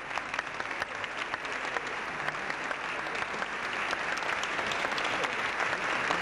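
Audience applauding, a dense patter of many hands that grows steadily louder.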